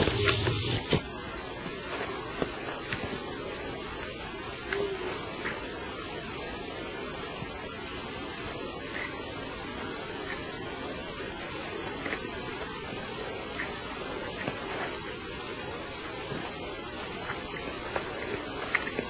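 Steady high-pitched drone of a tropical insect chorus, unbroken throughout, with a few soft knocks in the first second.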